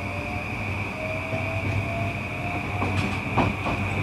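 JR East E235 series EMU motor car under power, its SiC-VVVF traction inverter whine climbing in pitch in repeated short rising glides over a steady high whine and low hum as the train gathers speed. A few sharp clicks from the wheels crossing rail joints come about three seconds in.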